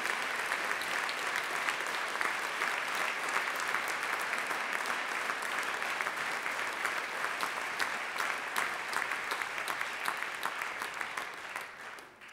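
Audience applauding, a dense steady clapping that thins to scattered claps and dies away near the end.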